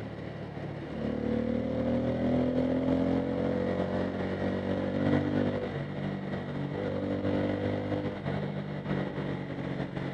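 Bajaj Pulsar N250's single-cylinder engine pulling under throttle, its note picking up about a second in and rising slowly, then dropping away and picking up again twice, over road and wind noise.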